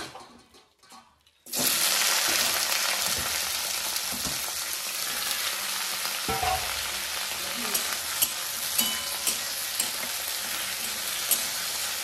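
Food sizzling in hot oil in a pan, starting suddenly about a second and a half in as it goes into the pan, with a few small clicks of stirring over the steady sizzle.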